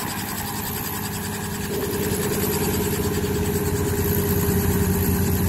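Two small two-bladed helicopters running on the ground with rotors turning: a steady engine drone with a regular rotor beat. A steady whine joins about two seconds in, and the sound grows slowly louder.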